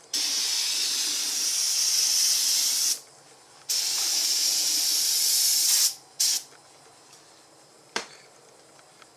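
Pressurized spray hissing in three bursts, two of a few seconds each and a short one, then a single sharp click near the end.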